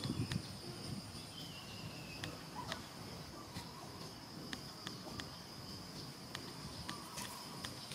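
An insect chorus drones in a steady, even, high tone, with scattered faint clicks and a brief low rumble at the start.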